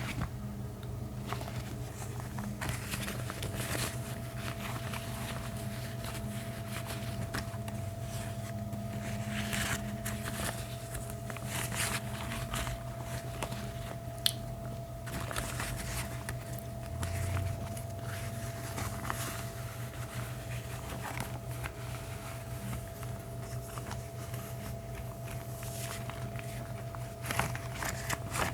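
Gloves rubbed, squeezed and crinkled close to the microphone, giving a run of soft crackles, scrapes and squishes, with one sharp click about halfway through. A steady low hum sits underneath.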